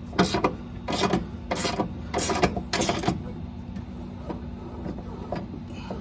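Socket ratchet turning the screw of a scissor jack to lower a truck cab, clicking in about five quick strokes during the first three seconds, then going quieter.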